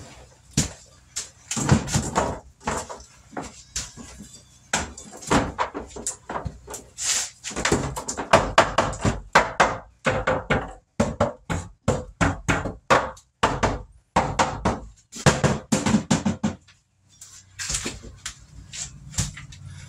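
Hammer blows and knocks on wooden wall framing and paneling during demolition, many hits in quick runs with short pauses between.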